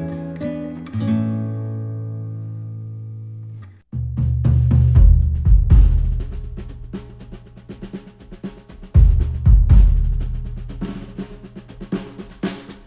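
Music played back through headphones and picked up by microphones: a plucked guitar line ends on a chord that fades away. After a short break, a new track starts with a drum kit and deep bass.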